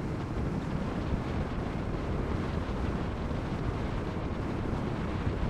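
Steady wind rush over the microphone and tyre-on-road noise from a LiveWire S2 Del Mar electric motorcycle riding at road speed, with no engine sound from its electric drive.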